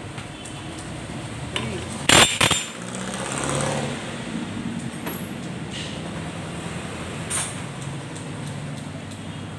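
Sharp knocks from off-camera workshop work over a steady background hum, the loudest a quick pair about two seconds in and a fainter one near the end.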